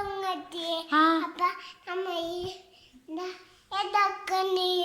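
A young child's high-pitched voice complaining in drawn-out, sing-song phrases, several in a row with short pauses between them.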